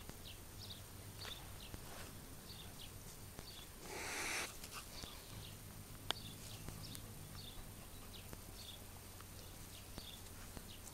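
A cat hisses once, a short hiss about four seconds in, against faint high chirping repeated throughout.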